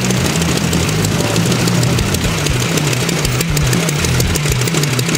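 Radial engines of several Ryan PT-22 Recruit trainer planes idling as the planes taxi in a line, a steady low throb.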